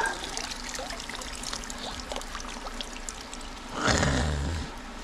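Water trickling and dripping from a mesh funnel trap as it is lifted out of a shallow stream, with a louder rush about four seconds in.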